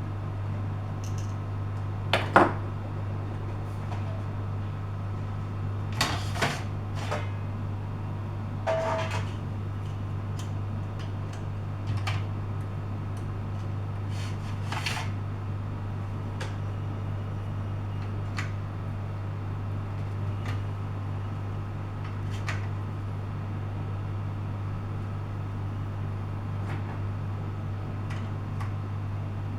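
Scattered clicks and light knocks of a hard disk drive and tools being handled, the loudest a little over two seconds in, over a steady low hum.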